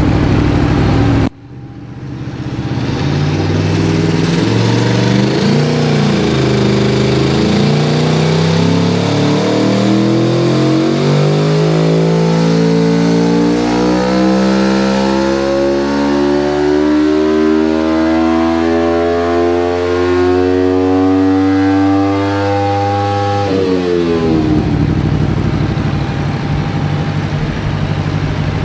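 Aprilia Tuono V4 1100's 65-degree V4, breathing through a full Akrapovic carbon race exhaust, making a full-throttle dyno pull. The revs climb in one long rising sweep for about twenty seconds, a little unsteady early on. Near the end the throttle is shut and the pitch falls away quickly to a lower, steady run.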